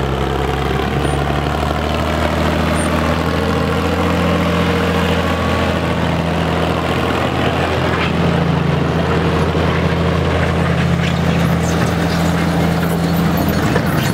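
Farm tractor engine running steadily with small shifts in pitch as it pulls a weight-transfer sled by chain.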